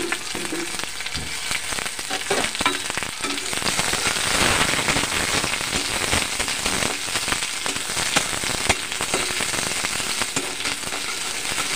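Sliced onions and bay leaves sizzling and crackling in hot oil in a metal kadhai, with a steel spatula stirring and scraping through them.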